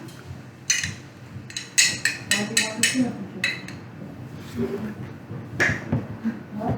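A series of sharp clicks and taps, several in quick succession in the first half and one more near the end, with faint voices in between.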